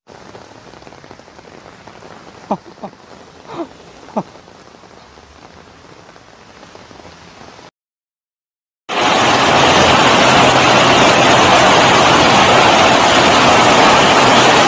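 Heavy rain and splashing water from a storm drain spouting on a pavement, with four brief squeaks falling in pitch near the middle. After a short silence, loud steady rushing of muddy floodwater pouring down a stairway.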